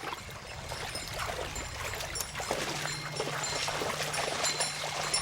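Water running and splashing steadily, with short high chirps over it.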